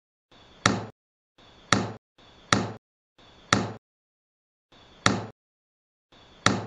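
A sharp knock-like click sound effect, the same sound repeated six times at uneven gaps, each with a short soft hiss just before it and dead silence between. It is timed to toy bricks being set onto a brick wall.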